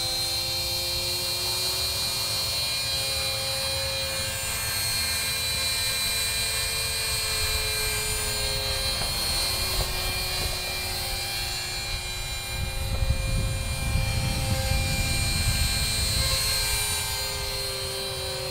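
Matrix 250R electric flybarless RC helicopter in flight: the high whine of its motor and drive with the hum of the spinning rotor blades, holding steady at flight speed with small dips and rises in pitch as it flies circuits. A low rumble joins in during the second half.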